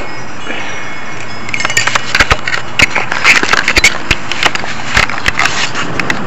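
Handling noise from a handheld camera being carried and turned: irregular sharp clicks and knocks, several a second, over a steady hiss. The clicks start about a second and a half in and stop shortly before the end.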